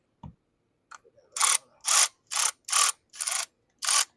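Hand socket ratchet being worked back and forth, a short burst of clicking on each return stroke, about two to three strokes a second starting about a second in. A brief dull thump comes just before.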